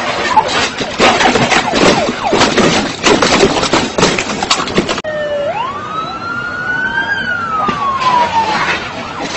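Loud, rough crackling noise for about five seconds, then a sharp cut to a clean police siren wail. The wail rises quickly, climbs slowly, then falls away over about three seconds before the crackling noise comes back near the end.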